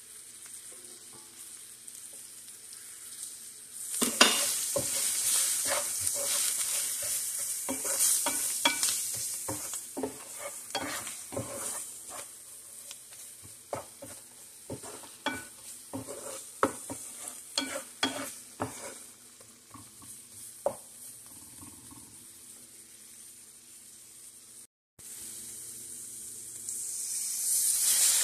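Onions, flour and grease sizzling in a nonstick frying pan as a wooden spatula stirs and scrapes, knocking against the pan many times in the middle; the flour is being cooked in the fat as a roux for gravy. The sizzle jumps up about four seconds in and swells again near the end.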